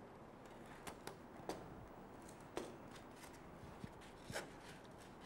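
A few faint, brief scrapes and crinkles: a craft knife slicing off excess OPP packing tape from a model boat hull, and the taped hull being handled.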